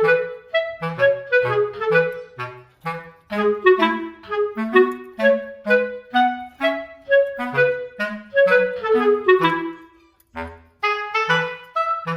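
Background music: a light instrumental tune in short, separate notes over a bass line. It pauses briefly about ten seconds in.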